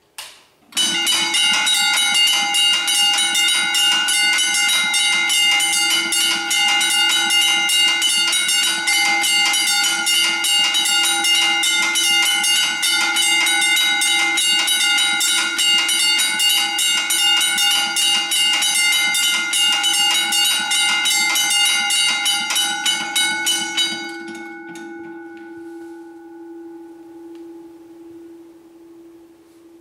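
Several railway level-crossing bells ringing together: a loud, fast, continuous clanging of overlapping strikes at several pitches. They stop together near the end, and one low tone rings on and fades away.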